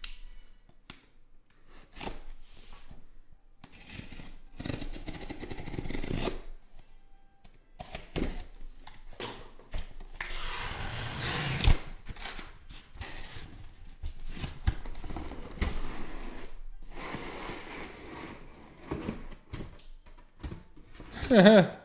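A taped cardboard case being cut open and its shrink-wrapped hobby boxes slid out and stacked: irregular rasping scrapes and slides of cardboard with a few knocks, the longest scrape about ten seconds in. A short wavering pitched sound just before the end.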